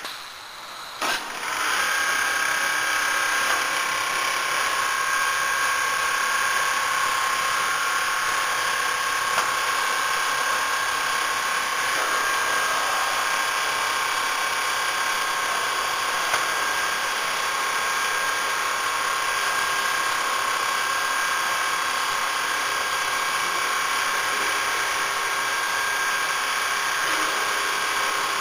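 ABM double-needle quilting machine running, its two-needle sewing head stitching across the quilt frame: a steady mechanical whir with a constant high whine, coming in about a second in.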